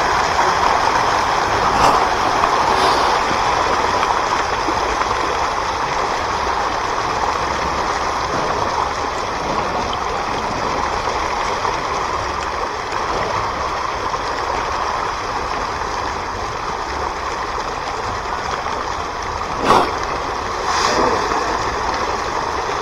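Steady rush of flowing water, with a sharp knock about twenty seconds in.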